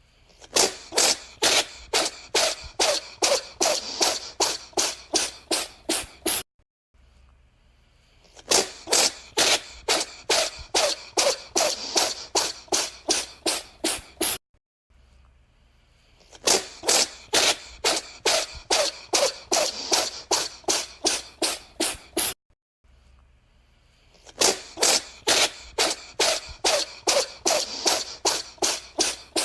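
A cat sneezing in rapid fits of about twenty sharp sneezes, roughly three a second. Each fit lasts about six seconds, with a short quiet pause of about two seconds before the next. Three fits play through, and a fourth starts near the end.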